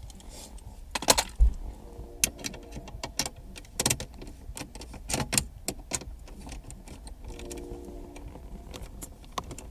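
Irregular metallic clicks and taps of a hand tool and small screws being worked loose from the stereo mounting in a car's dash, with a few louder knocks.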